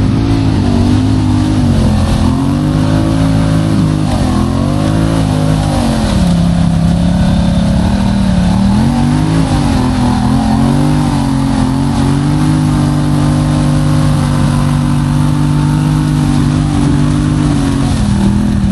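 ATV engine running under load, its pitch rising and falling repeatedly as the throttle is worked through the first half, then holding a steadier pitch for the rest.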